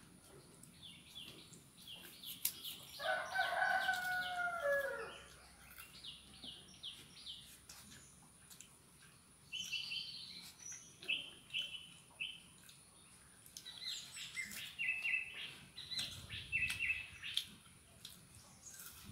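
Small birds chirping in quick repeated runs of high notes, with a rooster crowing once about three seconds in: a single call of about two seconds that falls in pitch at the end.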